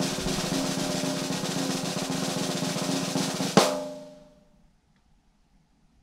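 Snare drum roll, the kind played for a reveal, ending about three and a half seconds in with a single loud hit that rings and fades out within a second.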